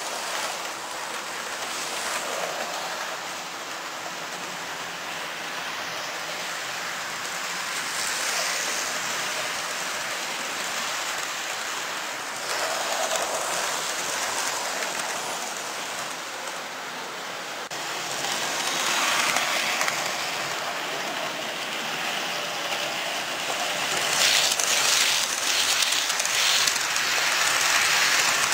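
Model trains running along the track, a steady rushing rattle of wheels on rail that swells and fades as trains pass close. Near the end it is at its loudest, with quick clicks as a container freight train's wagons go by.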